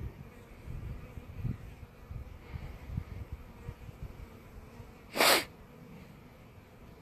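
Honeybees buzzing faintly around freshly installed package-bee hives, over low wind rumble on the microphone. About five seconds in comes one short, sharp breathy burst from the person filming, who has the hiccups.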